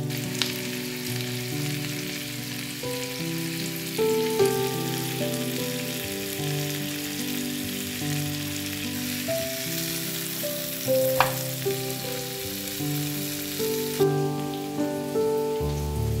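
Food sizzling in hot oil in a frying pan, a steady hiss, with two sharp clicks about half a second in and about eleven seconds in. The sizzle thins out about fourteen seconds in; soft background music plays underneath.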